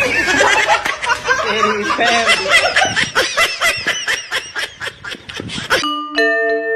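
Laughter in a long run of rapid bursts that stops abruptly near the end. Music with steady, ringing held notes takes over.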